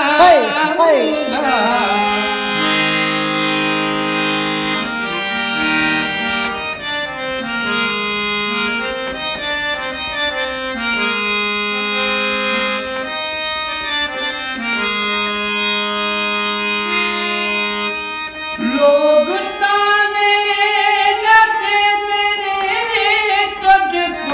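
Instrumental break in a folk song: a melody played in held notes that step from pitch to pitch, with a voice coming back in singing about nineteen seconds in.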